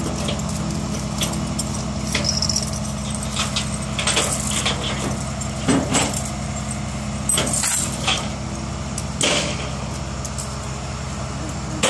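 Rollback tow truck's engine idling steadily, with short metallic clanks and rattles of chains and hooks being handled a few times.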